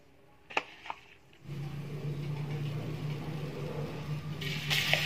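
Two light clicks, then a steady low hum starting about a second and a half in; near the end, flour-coated conch meat drops into hot oil in a steel wok and starts sizzling loudly.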